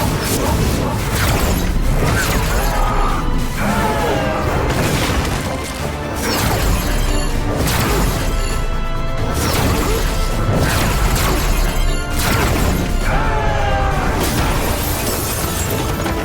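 Loud action film soundtrack: music mixed with fight sound effects, repeated impacts, crashes and booms.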